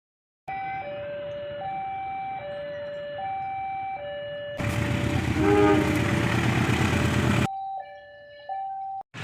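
Railway level-crossing warning alarm sounding an alternating two-tone ding-dong, the two notes swapping about every three quarters of a second. For about three seconds in the middle a loud rushing noise rises over it. The sound cuts off abruptly a few times.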